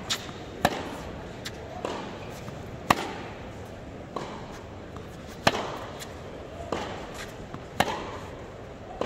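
Tennis rally: racquet strings striking the ball, with ball bounces on the hard court in between, about one sharp pop a second and the loudest hits roughly every two and a half seconds. Each hit rings on briefly in the large hall.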